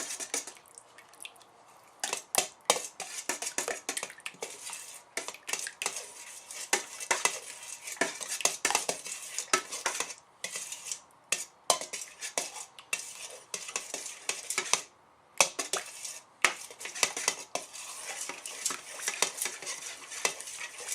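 A utensil stirring a thick sauce-and-sour-cream mixture in a large bowl, with rapid irregular clinks and scrapes against the bowl, starting about two seconds in.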